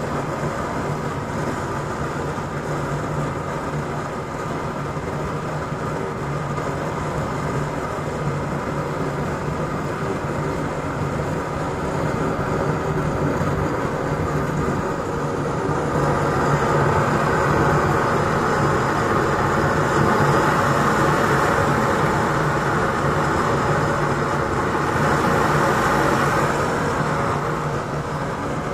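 Homemade used-engine-oil burner stove running: a steady rushing roar with a constant low hum, louder for a stretch in the second half before easing off near the end.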